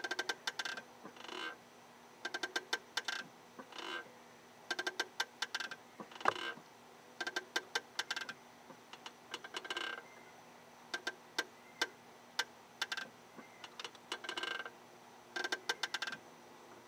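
MINI Cooper clutch with the engine off, making sharp clicking noises in short irregular clusters about once a second, each with a faint ringing tone, as the clutch is worked. It is the noise left after a new clutch kit and clutch fork work, which the owner takes for a fault and the dealer calls normal.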